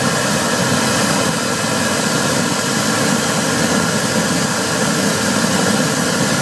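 US Jetter 18 gpm high-pressure sewer jetter running steadily: engine drone under a loud hiss of water jetting from a Warthog root-cutter nozzle as it cuts roots in a drain pipe.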